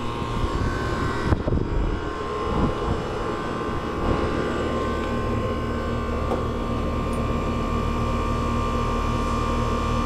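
1993 Rheem 1.5-ton air conditioner condensing unit running with a steady hum, with a few light knocks in the first few seconds.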